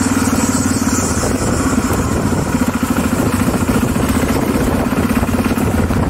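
Yamaha Ténéré adventure motorcycle engine running at a steady cruising throttle while riding, its rapid exhaust pulses even throughout, with a steady hiss over it.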